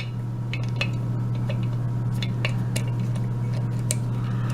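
Light metallic clicks and clinks, scattered and irregular, from a small brass euro cylinder lock being handled and clamped in place for picking, over a steady low hum.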